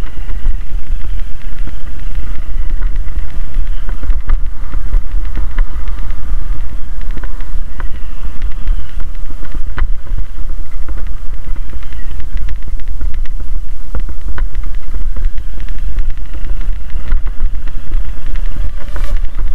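Motorcycle riding along a rough dirt embankment: engine running under a heavy, steady rumble of wind buffeting the microphone, with a few sharp knocks.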